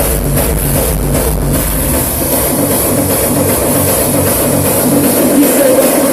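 Hardstyle electronic dance music played loud, with a pounding bass beat that drops out about two seconds in, leaving a repeating higher-pitched figure.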